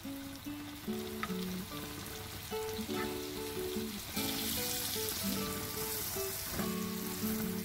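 Butter sizzling in a hot flat pan around cooking pancakes. The sizzle grows louder about four seconds in as a pancake is turned over with a spatula into the melted butter. Background music plays throughout.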